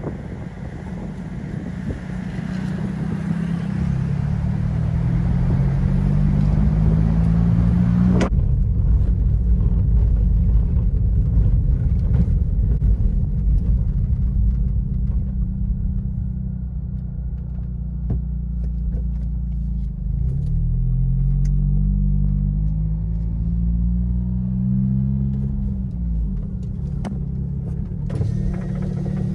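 Car engine and tyre rumble heard from inside the cabin. The engine note rises twice as the car accelerates.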